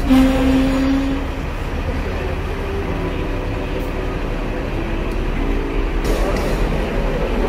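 Hong Kong double-decker tram running slowly along the street, with a steady low rumble from its motor and wheels. A single ringing tone lasting about a second sounds right at the start.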